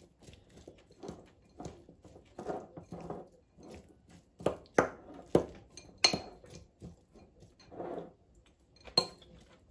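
A metal fork stirring a chopped salad in a ceramic bowl: soft rustling of the wet vegetables with irregular sharp clinks of the fork against the bowl, the loudest a little before halfway and near the end.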